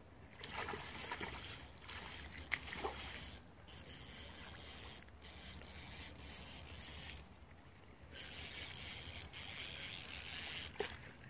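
A fishing reel rasping in stretches with short pauses while a freshly hooked tarpon is fought on the line.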